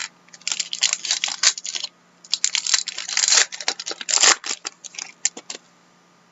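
Wrapper of a hockey trading-card pack being torn open and crinkled, in two spells of rapid crackly rustling that stop about five and a half seconds in.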